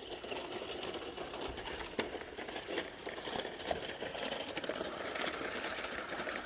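Small electric motor of a toy remote-control truck running, with scattered small clicks and crackles.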